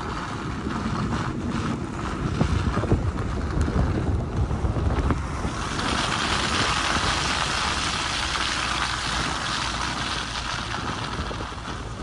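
Blizzard wind buffeting the microphone: a steady rushing noise with a heavy low rumble that swells in gusts, turning into a brighter hiss about halfway through.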